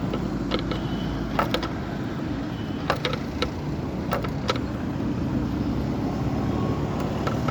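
Steady low vehicle engine rumble, with a few short sharp clicks scattered through it.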